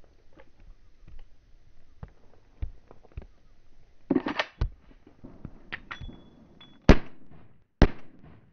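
Pistol shots slowed to 30% speed: light clicks and knocks, a burst of sharp cracks about halfway, then two very loud shots about a second apart near the end, each with a long trailing decay.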